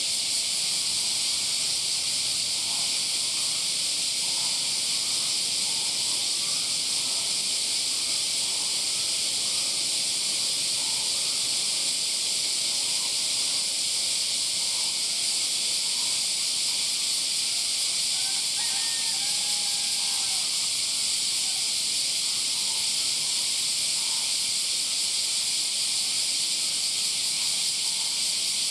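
Dense chorus of cicadas, a high, steady hiss with no break, with a few faint short chirps underneath.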